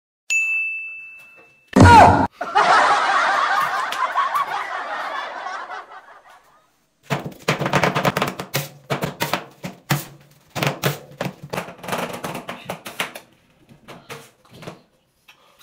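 A short bell-like ding, then a sudden loud hit and a few seconds of rushing noise that fades away. After a pause comes a run of quick, irregular scraping and knocking from a spoon mashing ice cream cake in a stainless steel bowl.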